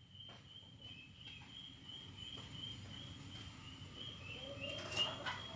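Rural outdoor ambience: a steady, high-pitched, slightly pulsing trill over a faint low background hum, with a farm bird starting to call near the end, rising in pitch.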